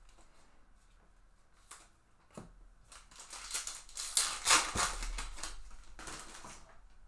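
Foil wrapper of a trading-card pack crinkling and tearing as the pack is opened, loudest about halfway through. A couple of light clicks come before it.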